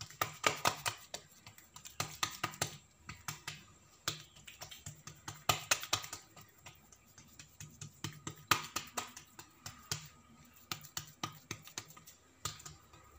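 Fingers patting and pressing an oiled, coiled malwi dough round flat against a granite countertop: irregular runs of quick, small, sticky taps, with short pauses between them.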